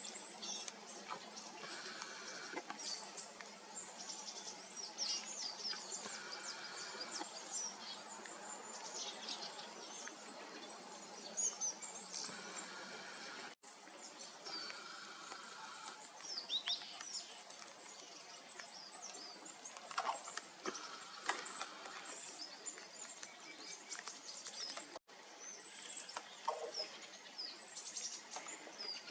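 Small birds calling in short high chirps and thin notes, scattered irregularly over a steady background hiss.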